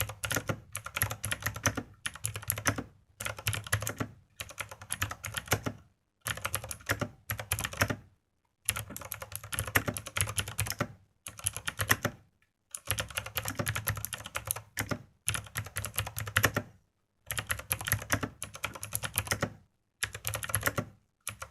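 Typing on a mechanical keyboard with Outemu green clicky, tactile switches: rapid sharp clicks in bursts of a second or two with brief pauses between.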